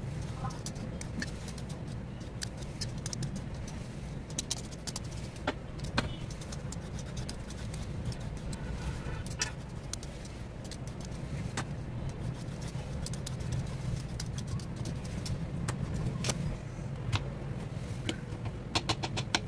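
Hand vegetable peeler scraping strips of skin off zucchini: irregular light scrapes and clicks over a steady low hum. Near the end come a few quick knife taps on a cutting board.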